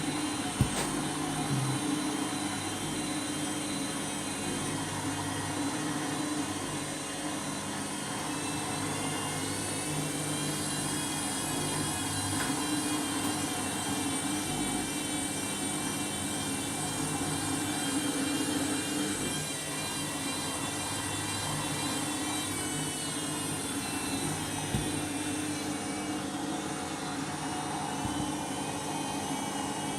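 Candy washing machine spinning at speed: a steady motor whine over the drum's rumble, the whine edging up in pitch about ten seconds in. The load is running fairly balanced.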